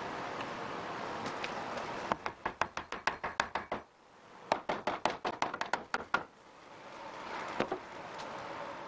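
Soft-faced mallet tapping on glued pallet-wood boards: two quick runs of about a dozen light knocks each, roughly seven a second, with a short pause between them. A steady hiss comes before and after the knocking.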